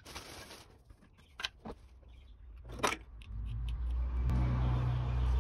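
A few sharp clicks and taps as gloved hands work on the wiring inside an air-conditioner outdoor unit, then a low rumble with a steady hum swells up from about three seconds in and becomes the loudest sound.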